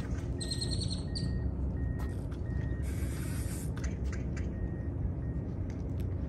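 Steady wind rumble on the microphone over open water, with faint high bird chirps near the start and a run of faint short repeated tones. A brief hiss comes about three seconds in.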